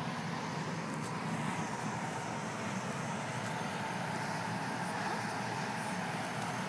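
Foam machine's blower running with a steady, even whir.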